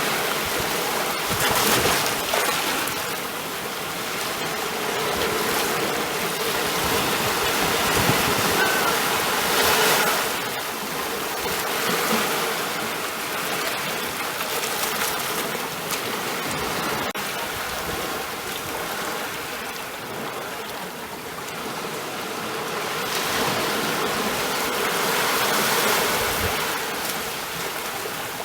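Ocean surf: a continuous rush of breaking waves that swells and eases every few seconds.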